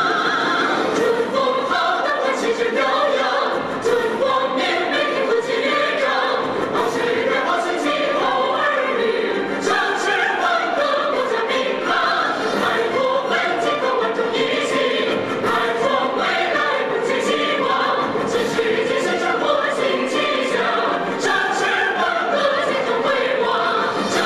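A group of singers, men and women, singing a song together over instrumental accompaniment.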